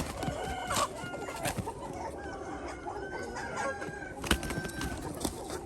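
A flock of chickens clucking and calling over one another, with a few sharp knocks among them, the loudest about four seconds in.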